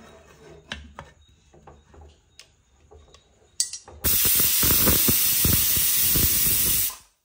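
Stovetop pressure cooker whistle blowing off steam in a loud hiss for about three seconds, pulsing underneath, then cutting off abruptly: the cooker is up to pressure. Before it come a few light knocks.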